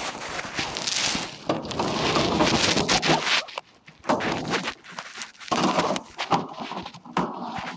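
Rustling and scraping handling noise with a few knocks as the camera is moved with its lens covered, the microphone rubbing against something close.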